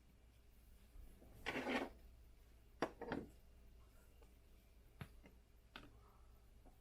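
Faint handling of trading cards: a short crinkle of a foil pack wrapper about a second and a half in, then a few light clicks and taps as the cards are handled.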